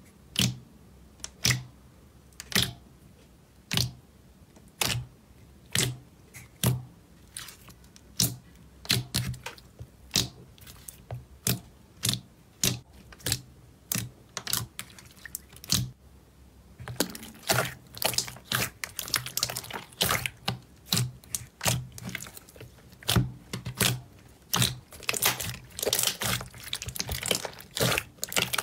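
Thick two-tone slime in a plastic tub being poked and kneaded by hand, making sharp wet clicks and pops. They come about a second apart at first, then quickly and close together from about 17 s in as both hands squeeze and stretch it.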